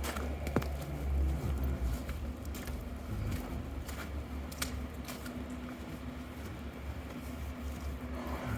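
Distant diesel locomotive running at a rail yard, a steady low rumble with a steady hum, with scattered sharp clicks over it.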